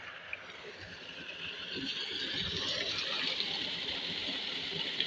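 Pumped water gushing from a pipe outlet and splashing into a concrete tank: a steady rushing hiss that grows louder about two seconds in.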